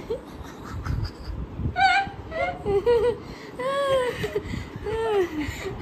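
Elderly woman laughing, with several high, drawn-out rising-and-falling cries of laughter from about two seconds in.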